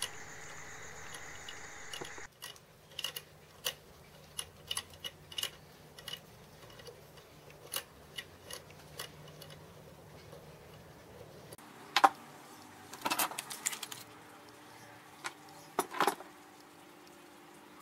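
Small metal hand tools, a tap wrench and tap, clicking and clinking as they are handled, with a few louder clacks and rattles near the end.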